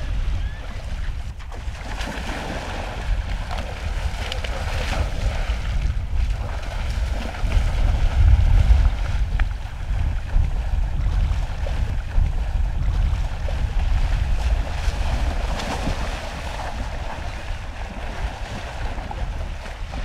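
Wind buffeting the microphone in a steady low rumble over the rush of shallow creek water.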